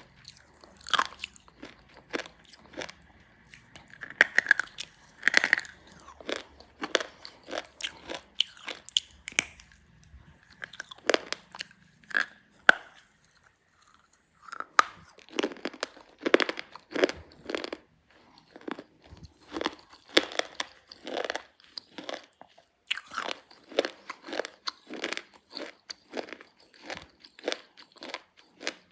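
Black slate pencils being bitten and chewed close to the microphone: a steady run of sharp, brittle crunches, several a second, with a short pause about halfway through.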